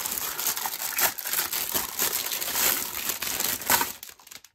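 Thin clear plastic bag crinkling and rustling as a plastic storage tray is pulled out of it, with sharper crackles throughout, the loudest a little after three and a half seconds in.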